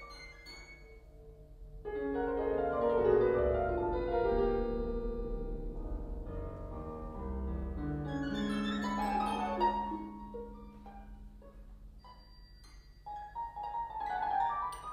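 Contemporary concert music: many overlapping pitched notes come in together about two seconds in over a held low note, then thin out to scattered single notes, with a short flurry near the end.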